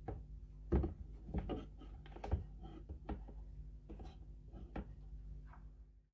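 Steel rods of a homemade electrolysis anode frame knocking and clattering against a plastic tub and a wooden block as they are set in place by hand: a scatter of sharp knocks, the loudest about a second in and again near two and a half seconds.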